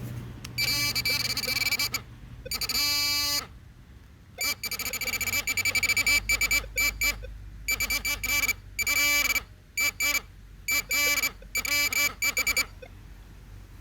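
Metal detector target tones: repeated bursts of rapidly pulsing electronic beeps, cutting in and out as the coil passes over a buried metal target.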